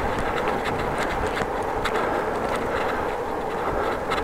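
Bicycle being ridden: a steady rumble of tyres and wind, with scattered, irregular light ticks from the bike's drivetrain, a noise the rider traces to the bottom bracket or crank.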